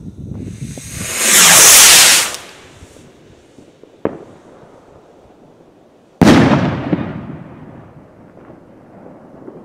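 An aerial firework going off. It hisses loudly for about two seconds as it rises, gives a single sharp crack about four seconds in, then bursts with a loud bang a couple of seconds later that echoes and fades slowly. Faint crackling pops follow near the end.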